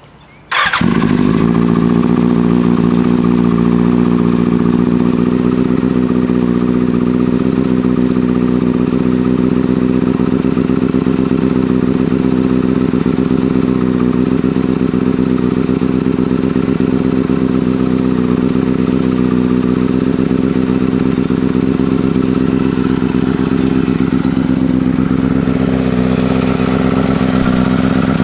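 2009 Kawasaki Ninja ZX-6R's inline-four engine starting about half a second in, then idling steadily. The bike is running on its newly replaced wiring harness and fuel pump.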